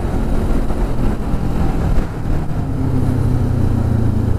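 Motorcycle engine running on the move, its note steadying in the second half, under heavy wind noise on the helmet microphone.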